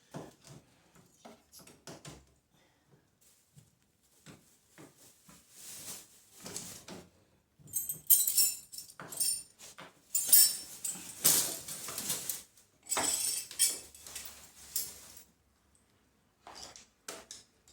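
Small metal tools and parts being handled: light clicks and knocks, then several loud bursts of clinking and jangling in the middle, stopping a couple of seconds before the end.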